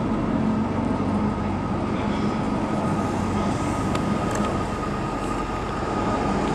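Hong Kong MTR M-Train, a Metro-Cammell electric multiple unit, passing through an underground station without stopping, heard through the platform screen doors. It gives a steady rumble of wheels on rails with a steady whine running through it, and a few sharp clicks about four seconds in.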